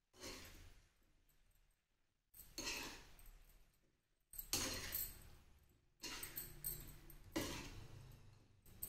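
A ladle stirring and scraping potatoes and cauliflower in a kadhai, about five quiet strokes, each a clinking scrape that fades away.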